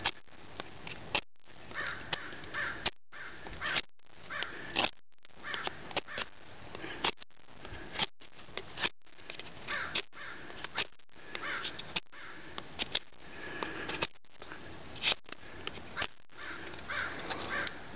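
Small, flimsy multi-tool knife blade being pushed along a stick to whittle it, making repeated short scraping shaves at an irregular pace; the blade only shaves off a little wood.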